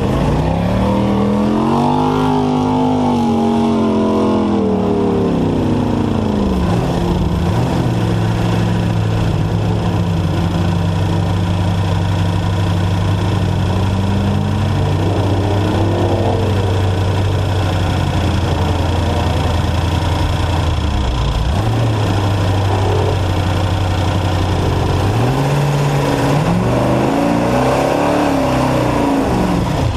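Race truck engine under way: it revs up and eases back at the start, holds a steady pitch for long stretches with brief dips, then revs up and back down again near the end, over a constant rushing noise.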